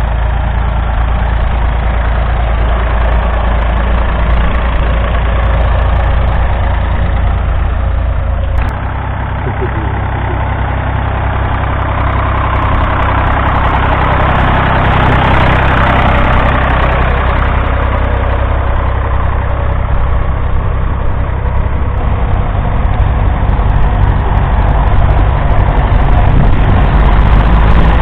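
Vintage farm tractor engine running steadily, with an abrupt change in the engine sound about nine seconds in and a louder swell around the middle.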